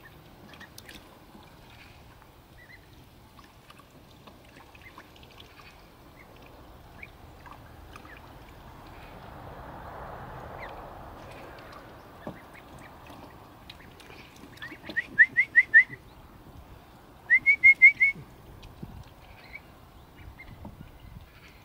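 Khaki Campbell ducklings peeping: two quick runs of about five high calls each, a couple of seconds apart after the middle, with faint scattered peeps in between.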